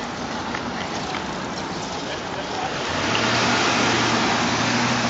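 Wind rushing over the microphone of a bicycle being ridden along a road. About three seconds in, a steady engine hum and louder road noise come in as a taxi drives past close alongside.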